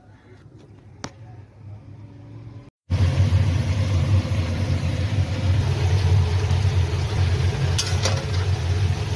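A faint low hum, then about three seconds in a loud, steady low rumble with hiss begins. Near the end a metal spatula scrapes a few times in an iron kadai.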